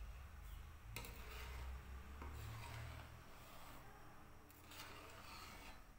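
Long steel scraper (khurchna) stirring and scraping the bottom of an aluminium kadhai of simmering milk and grated carrots, in a few scratchy strokes over a low steady rumble. The scraping keeps the reducing milk from sticking to the pan.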